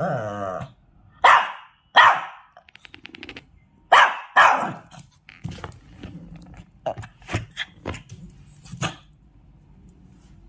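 A Shih Tzu barking in a run of short, sharp barks, the loudest about one, two and four seconds in, then quieter, sparser barks through the rest.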